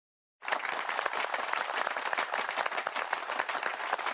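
Crowd applause, a dense even patter of many hands clapping, cutting in abruptly about half a second in and cutting off just as abruptly at the end, as an added sound effect.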